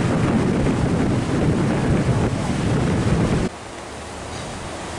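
Wind buffeting the microphone outdoors: a loud, rumbling rush that cuts suddenly about three and a half seconds in to a much quieter steady hiss.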